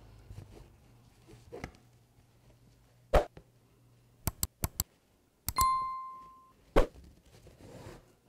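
Hand-embroidery handling sounds: faint swishes of thread drawn through fabric on the hoop, two loud knocks, a quick run of four sharp clicks, and a click followed by a short ringing tone that dies away over about a second, near the middle.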